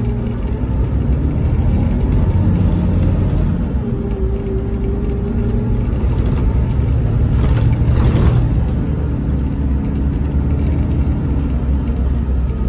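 Volvo B11RT coach's 11-litre six-cylinder diesel and drivetrain heard from inside the passenger cabin: a steady low drone with a faint whine that drifts in pitch. A brief hiss comes about two-thirds of the way through.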